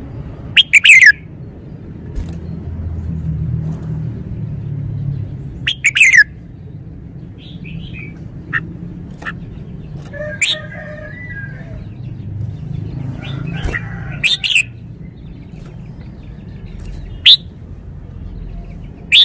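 Red-whiskered bulbul singing: about five loud, short phrases spaced several seconds apart, with softer chattering notes in between.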